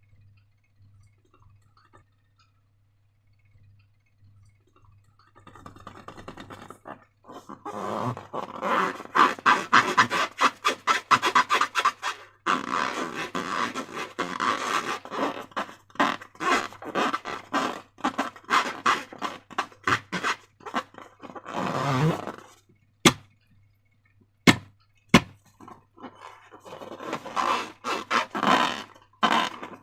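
Slime being squeezed and worked by hand, giving dense, rapid wet squelching and crackling that starts about five seconds in. There are a few sharp clicks near the end.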